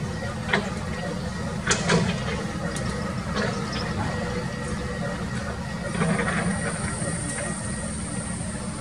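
Doosan hydraulic excavator's diesel engine running steadily under load, with several sharp clanks and knocks in the first few seconds as the bucket digs into the dirt. A thin high hiss comes in about two thirds of the way through.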